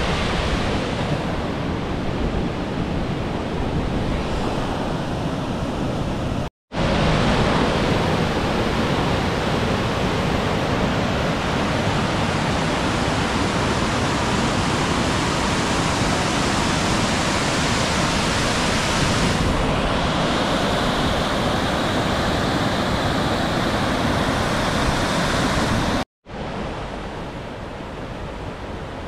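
Steady rush of white water from a mountain waterfall tumbling over rock. The sound breaks off for an instant twice, louder between the breaks, and softer near the end where a rocky creek is running.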